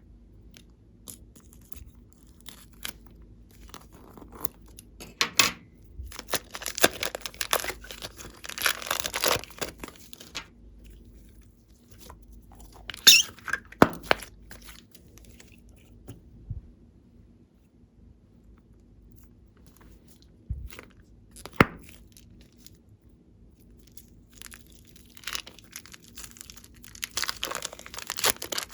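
Glossy slime mixed with clay being worked by hand: sticky crackles and pops in irregular bursts, with quiet pauses between.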